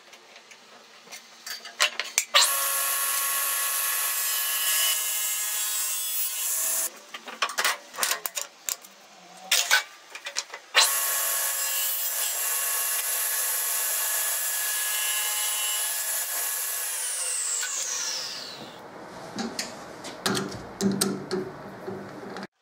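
Table saw cutting a wooden block in two runs of several seconds each, with clicks and handling knocks between them. After the second run the blade spins down with a falling whine. Near the end come metal knocks and clinks as a lathe chuck is handled with its chuck key.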